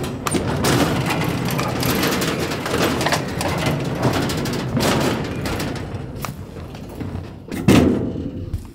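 A Rösle gas grill rolling across wooden decking boards on solid-rubber, ball-bearing casters with metal housings. It makes a steady rolling noise with a few knocks, the loudest near the end.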